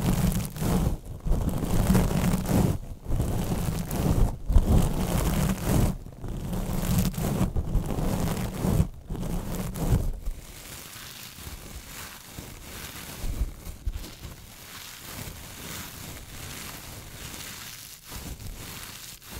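Metallic mesh scrubbing sponges rubbed and scratched directly over a microphone, loud and scratchy with a heavy rumble from the contact, in strokes with short pauses. About halfway through the rubbing stops and the scrubbers are squeezed beside the mic, giving a quieter steady crinkling.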